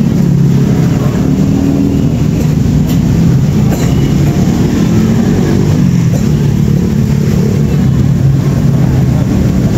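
A steady engine hum, even and unbroken, over general street noise.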